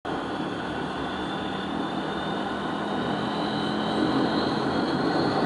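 Antonov An-24's twin Ivchenko AI-24 turboprop engines running: a steady propeller drone with a high turbine whine that edges slightly upward as the sound grows a little louder.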